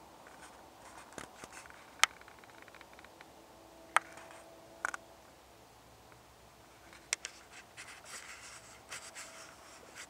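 Scattered sharp clicks over a low steady hiss: single clicks about 2 and 4 seconds in, a quick pair near 5 seconds, another near 7 seconds, then faint crackling and scratching through the last few seconds.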